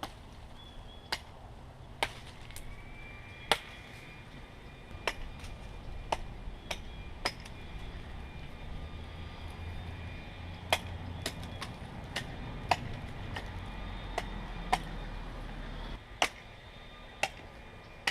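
Hatchet blade chopping into a small tree's wood: sharp, irregular strikes at roughly one a second. A low rumble sits under the middle part and stops suddenly.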